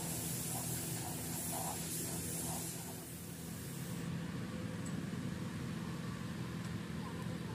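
Air spray gun hissing as paint is sprayed onto a truck cab, over a steady low machine hum; the hiss drops away about four seconds in.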